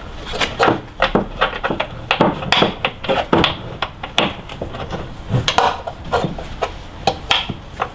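Irregular metallic clicks and knocks, several a second, as bolts are slid through a Hardrace adjustable camber arm and the arm is worked into its mount.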